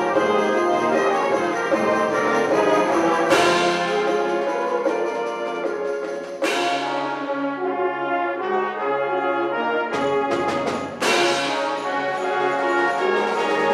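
A high school wind ensemble playing concert music, with full brass chords held and moving. Sharp struck accents ring out about three, six and a half, and eleven seconds in.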